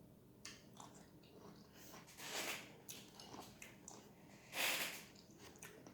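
A person eating sour lemon: small wet mouth clicks and two hissing breaths, the second a little louder, about two seconds and four and a half seconds in.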